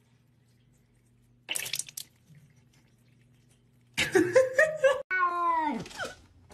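Cats meowing: a brief noise, then from about four seconds in a wavering meow, followed by a longer meow that slides down in pitch.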